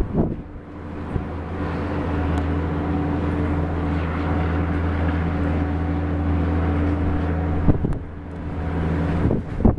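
A motor vehicle's engine running with a steady, unchanging hum that fades out about eight seconds in. Gusts of wind buffet the microphone at the start and near the end.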